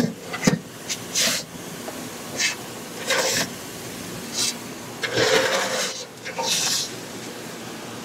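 Soybeans being scraped across a grain bin floor in about nine short, irregular strokes.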